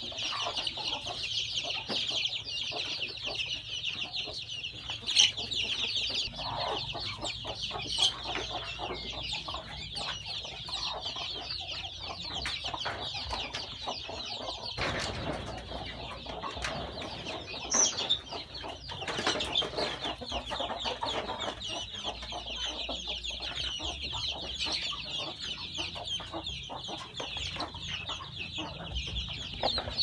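A flock of chicks peeping continuously in a dense high chorus, with hens clucking now and then underneath and a few louder calls standing out.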